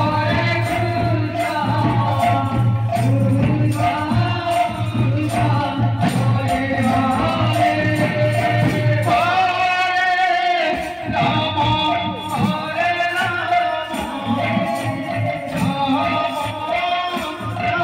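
Kirtan devotional music: a male lead voice sings through a microphone over khol barrel drums and jingling small hand cymbals keeping a steady driving rhythm. About ten seconds in, the drums briefly drop out while a long note is held.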